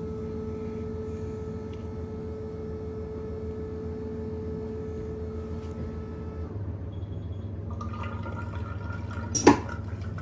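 Milk vending machine dispensing fresh milk into a one-litre glass bottle: the stream of milk pours into the bottle over the machine's steady hum. The hum changes about six and a half seconds in, and a single sharp click comes near the end.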